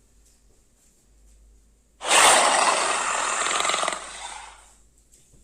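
Custom Asian dragon roar sound effect: one harsh, raspy roar starting about two seconds in, holding for about two seconds and then trailing off.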